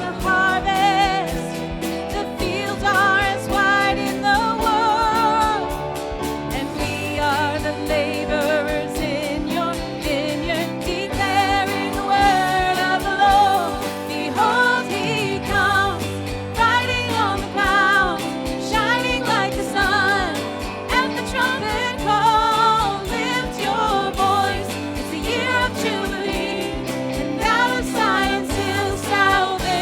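Worship song: singing with vibrato over instrumental accompaniment, with a bass line that changes note every couple of seconds.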